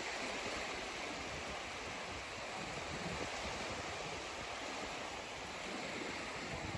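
Sea surf: a steady wash of waves with no single crash standing out.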